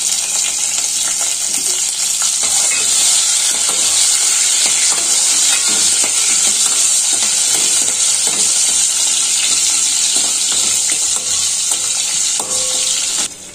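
Garlic cloves and mustard seeds sizzling in hot oil in a stainless-steel pot as a tempering (tadka), with a spoon stirring and scraping against the pot. The sizzle is a steady hiss that drops away suddenly near the end.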